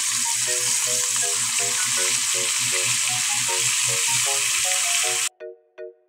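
Squid sizzling in hot oil with sautéed garlic and onion in a wok. The sizzle cuts off suddenly about five seconds in, leaving only background music, which plays under the sizzle throughout.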